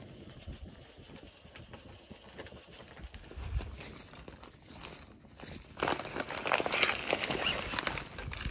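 Nylon stuff sacks and backpack fabric rustling and crinkling as gear is rummaged through by hand. Faint and sparse at first, then a dense, loud crinkling from about six seconds in.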